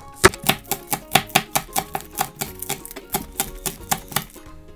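Chef's knife chopping spring onions on a plastic cutting board: quick, even strokes about five a second that stop shortly before the end. Soft background music underneath.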